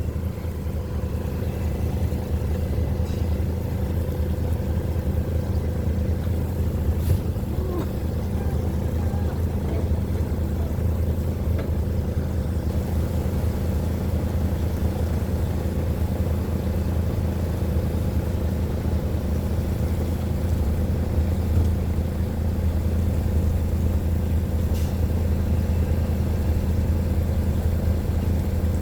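Motor vehicle engine running steadily under way, a constant low drone heard from inside the cab.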